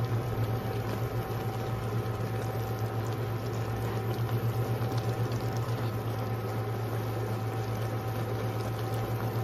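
Coconut milk simmering and bubbling in a wok with shrimp and fern leaves, stirred with a silicone spatula, over a steady low hum from the electric cooktop.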